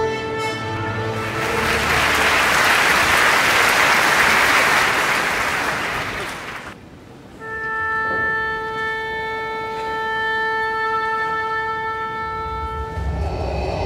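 A held orchestral chord gives way to audience applause, which swells and then cuts off sharply about seven seconds in. A long, steady chord of bowed strings and winds follows, with a low rumble coming in near the end.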